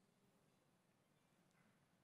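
Near silence: faint room tone in a pause between speech.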